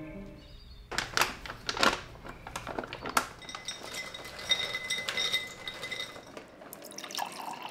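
Raw cashews poured from a plastic bag into a glass Ball mason jar, rattling and clinking against the glass. Near the end, water starts pouring into the jar.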